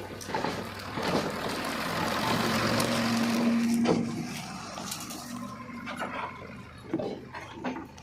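Wet mud rushing and sliding out of a JCB 3DX backhoe loader's bucket into a tractor trolley. It builds for about three seconds, with a brief whine near the peak, then dies away, followed by a few knocks.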